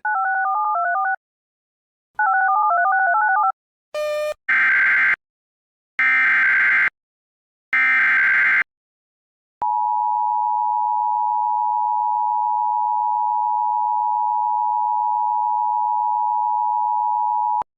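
Emergency Alert System broadcast tones: two short runs of beeps alternating between two pitches, then the three one-second bursts of the SAME digital header, then the steady two-tone EAS attention signal held for about eight seconds and cut off abruptly, announcing a new warning.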